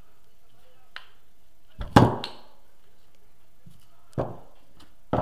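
Four sharp metal knocks, the loudest a double clack about two seconds in: steel alternator claw pole pieces being handled and snapping against a magnet-packed alternator rotor, a show of the magnets' pull.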